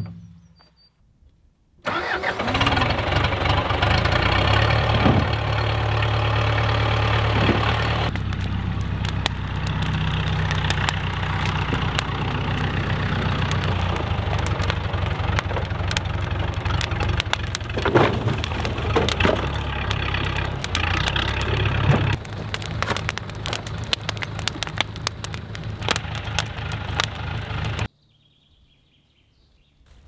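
Old farm tractor's engine running steadily, starting abruptly about two seconds in and cutting off shortly before the end. In the middle there is a stretch of sharp crackling and clicks as a bonfire of old wooden planks burns.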